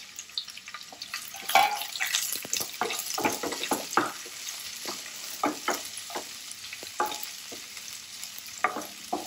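Sliced onion sizzling as it fries in hot oil with whole spices, while a spatula stirs it, scraping and clicking irregularly against the pan.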